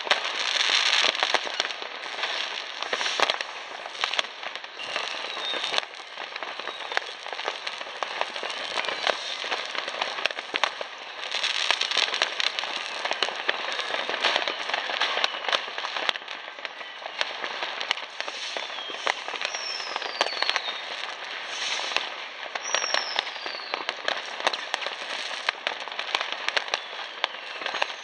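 Many New Year's fireworks going off at once across the city: a continuous dense crackle of firecrackers and rocket bursts, with a few short falling whistles past the middle.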